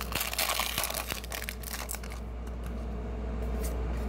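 Foil wrapper of a Pokémon trading-card booster pack crinkling and tearing as it is opened, dense for about the first two seconds, then quieter. A steady low hum runs underneath.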